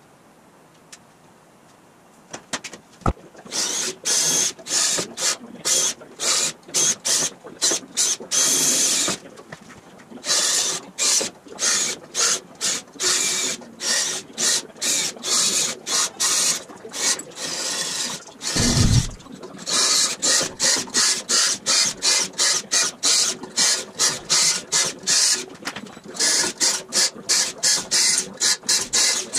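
Cordless drill run in short bursts, about two a second, drilling holes through a sheet-aluminum dashboard and the steel cowl hoop behind it. A single low thump about 19 seconds in.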